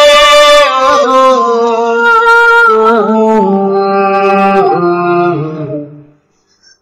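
Song vocals: a voice holds long, wordless sung notes that move downward in pitch, then fade out about six seconds in.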